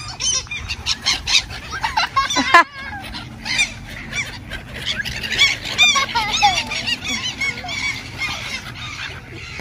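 A flock of black-headed gulls calling, many short harsh squawks overlapping irregularly as the birds wheel and land close by.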